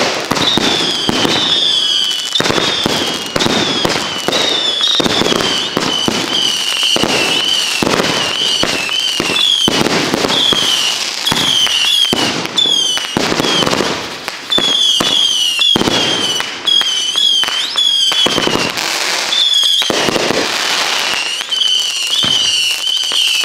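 'Samurai' consumer firework cake firing shot after shot in quick succession, with short falling whistles again and again over the bangs.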